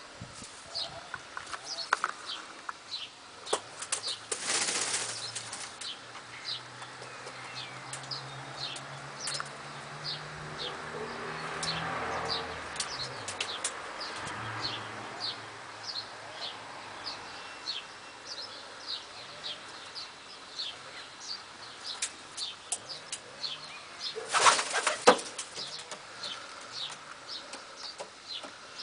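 Lahore pigeons in a loft: two loud bursts of wing flapping, one about four seconds in and one near the end, and a low cooing in the middle, over a steady patter of short high chirps.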